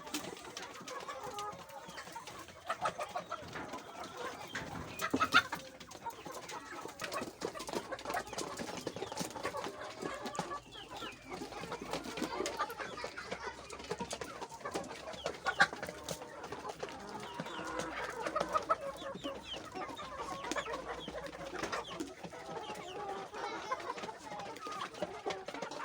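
A flock of chickens clucking and calling, many short calls overlapping, with a few louder ones standing out.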